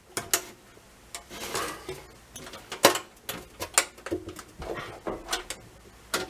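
Metal clicks and knocks from a stainless steel pot still's lid being pressed down and clamped by hand, the sharpest about three seconds in.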